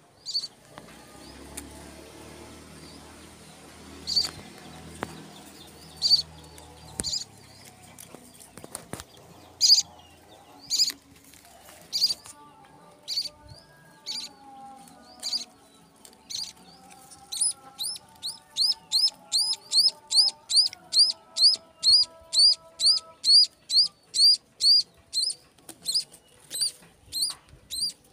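High-pitched cheeps of a munia (bondol). A few scattered calls come at first, then a steady run of about two cheeps a second from about halfway on.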